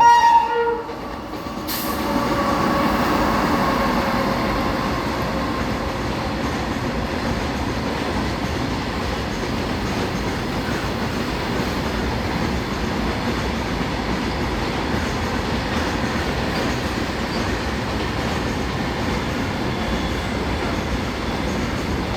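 A WAG-9 electric locomotive's horn gives a short blast that cuts off within the first second. Then a freight train of BCN covered wagons rolls past with a steady rumble.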